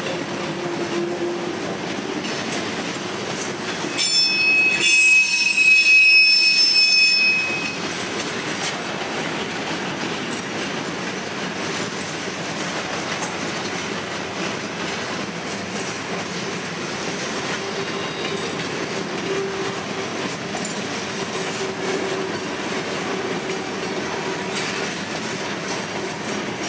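Norfolk Southern freight train of open-top hopper cars rolling past, a steady rumble and clatter of wheels on rail. About four seconds in, a loud, high-pitched wheel squeal rings out for about three seconds, then the steady rolling noise goes on.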